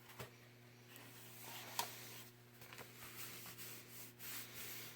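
Faint rustling and sliding of cardstock as a paper piece is handled and tucked into a paper pocket, with a couple of light clicks.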